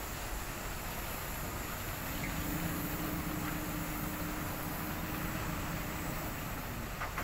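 Heavy dump truck's diesel engine running as the truck pulls away, over a low rumbling background hum. A steady engine drone comes in about two seconds in and fades near the end.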